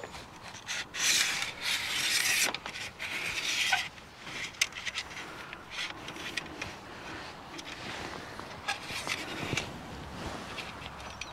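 Rubbing and scraping with scattered sharp clicks as a camper-van awning's telescopic support leg is handled and adjusted, loudest in the first few seconds and quieter after.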